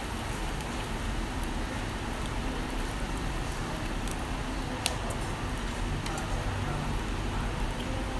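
Mackerel fillet sizzling on a wire mesh grill over charcoal: a steady hiss with scattered small pops and one sharper crack about five seconds in, over a low steady hum.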